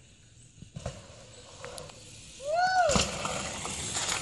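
Bicycle landing a dirt jump with a couple of knocks about a second in, then rolling over dirt. About two and a half seconds in, a person gives a short loud whoop that rises then falls in pitch, followed by a steady rush of noise.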